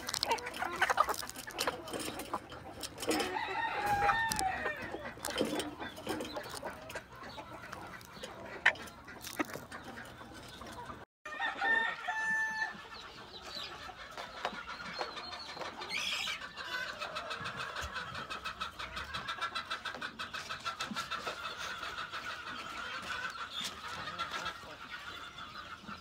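Chickens clucking while pecking at green feed in a wire feeder, with many quick sharp pecking taps through the first half. After a brief dropout, fowl calls carry on as a fast, even chatter.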